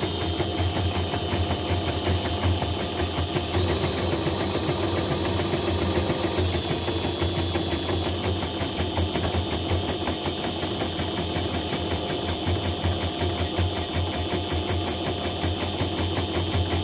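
Yoko portable computerised embroidery machine stitching a design, its needle running in rapid, even strokes over a steady motor hum. It is a test stitch after repair of a 'system self check failed' fault, and the machine runs normally.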